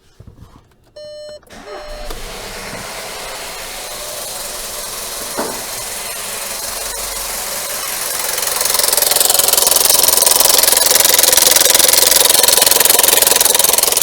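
Skoda Yeti's chain-driven 1.2 TSI turbo petrol engine being started after a short dashboard chime, then running very loud with a chain rattle and a steady knock. It gets louder and brighter from about eight and a half seconds in. The mechanic takes the noise for a stretched timing chain, with the engine oil below minimum.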